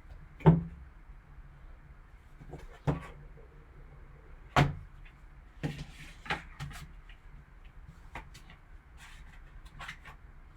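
A cardboard sports card box being handled and opened: several dull knocks, the loudest about half a second in, with light rustling and small ticks between them.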